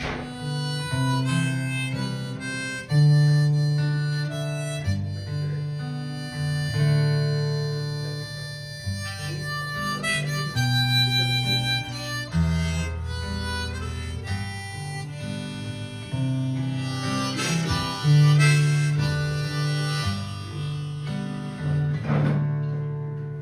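Instrumental break in a live acoustic folk song: acoustic guitar accompaniment under a lead instrument playing a melody of held notes.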